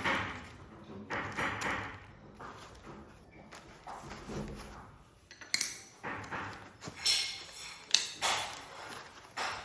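Small metal parts clinking: about four sharp metallic pings with brief ringing in the second half, over a low background of handling noise.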